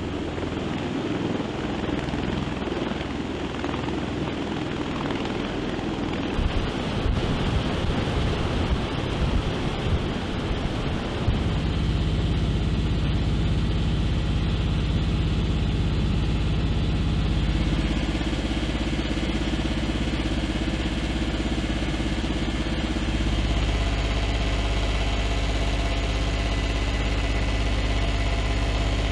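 MV-22 Osprey tiltrotor engines and proprotors running: a rough, fluttering aircraft noise at first, as Ospreys lift off from a runway. About eleven seconds in it changes to a steady low drone with fixed tones, the Osprey's engines and rotors heard from inside the cockpit in cruise flight.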